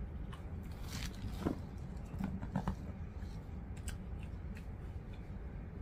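Chewing a seasoned potato wedge, with a few short, faint mouth clicks.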